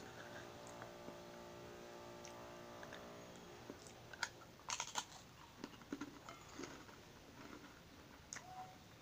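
A crisp Marie biscuit bitten with a sharp snap about four to five seconds in, followed by crunchy chewing with scattered small crackles.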